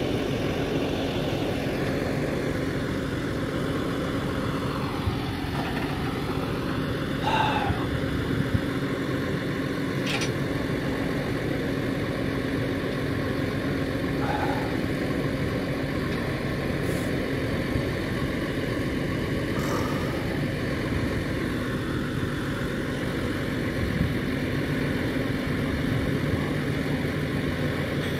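Flatbed tow truck engine running steadily at idle while it drives the hydraulics that level the bed under the loaded car. A whine dips in pitch and comes back a few seconds in, and a few short high-pitched squeaks come at intervals.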